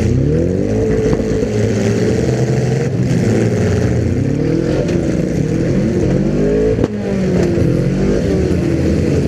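Several demolition derby car engines revving at once, their pitch rising and falling again and again as the cars accelerate and back off. A single sharp knock comes about seven seconds in.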